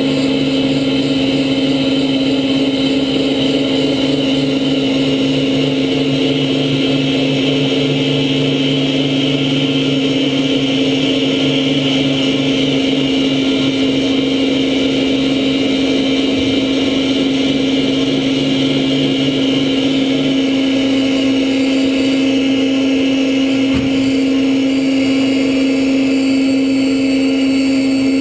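DeHoff 218 four-spindle gun drill running at work, its spindle motors giving a steady loud hum with a high hiss over it. A lower hum drops away about two-thirds of the way through.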